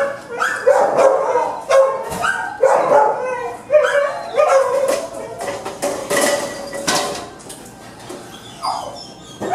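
Shelter dogs in their kennels barking repeatedly, several barks a second for about five seconds, then thinning out to a single bark near the end. A few sharp knocks come about six to seven seconds in.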